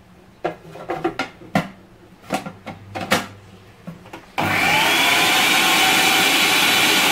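Plastic clicks and knocks as a food processor's lid and feed-tube pusher are fitted. About four seconds in, the motor starts with a whine that rises as it comes up to speed, then runs steadily, blending ground hazelnut paste with olive oil.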